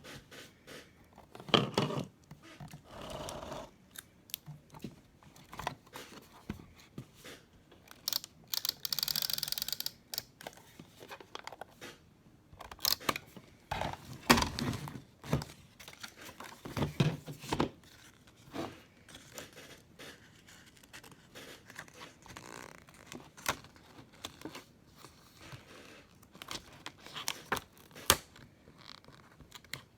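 Handling noises: scattered clicks, light knocks, crinkling and tearing of material, with a longer rustling stretch about nine seconds in and a louder knock a few seconds later.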